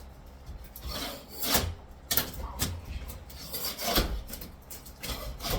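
Hand tools scraping and knocking at wall material during demolition, in uneven rasping strokes with several sharper knocks.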